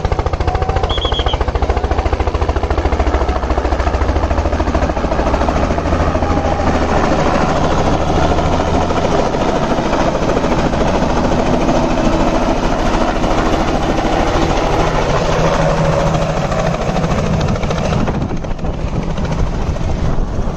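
Light two-bladed helicopter's rotor chopping fast and steadily as it approaches and comes down to land. The sound drops a little near the end.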